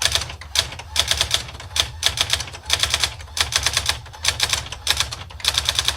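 Brother SX-4000 electronic daisywheel typewriter printing a line of text: quick runs of sharp clacks, one per character as the print hammer strikes the daisy wheel, broken by short pauses, over a steady low hum.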